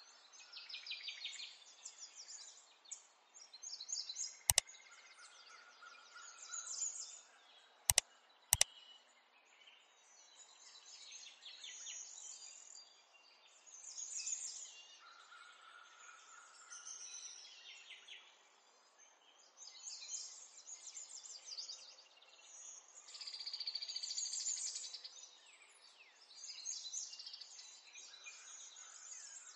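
Birds chirping and singing in repeated bouts of high trills and short whistles. Three sharp clicks stand out: one about four and a half seconds in, and two close together about eight seconds in.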